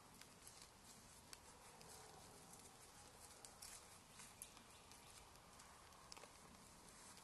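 Near silence: a faint steady hiss with scattered soft clicks and ticks at irregular intervals.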